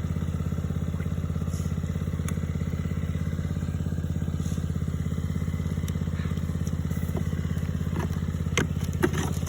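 An engine idling steadily with an even, rapid pulse. A few sharp clicks and knocks come near the end.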